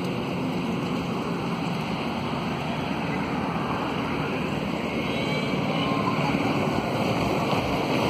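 Steady rushing background noise, growing a little louder in the second half.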